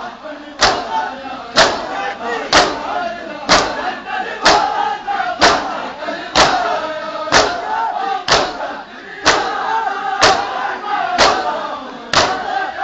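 A crowd of Shia mourners doing matam, striking their bare chests with their hands in unison about once a second. Each strike is a sharp slap, and a crowd of men chants between the strikes.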